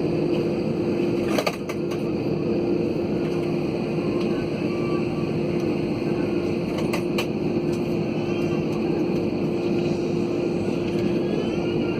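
Airliner cabin noise before takeoff: a steady drone with a constant hum, broken by a couple of sharp clicks, about a second and a half in and again about seven seconds in.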